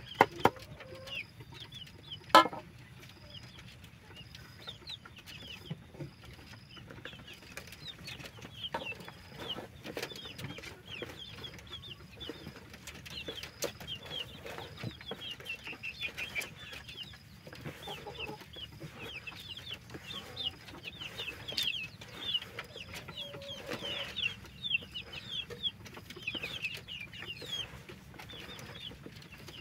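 Chickens clucking and peeping in many short, high calls, with one sharp knock about two seconds in from a knife chopping cassava leaves on a wooden board.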